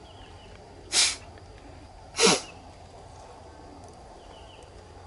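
Two short explosive exhalations from a person, about a second and a quarter apart; the second is the louder and ends in a falling voiced tone.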